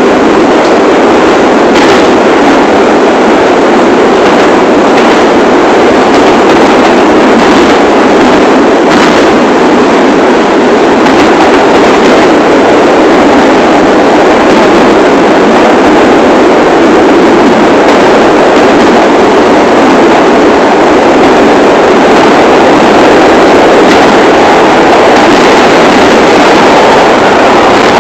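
A New York City subway train on the 1 line running along the track, heard from inside the front car: a steady, loud rumble of wheels on rails with a few faint clicks.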